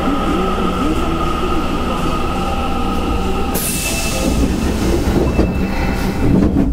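Osaka Metro Midosuji Line 10 series subway train standing at the platform, its on-board equipment humming with steady tones over a low rumble. About three and a half seconds in, a sudden hiss.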